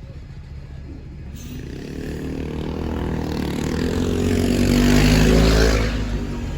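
Diesel passenger train approaching and passing, its engine and wheel rumble growing louder from about a second in, loudest around five seconds in, then easing off.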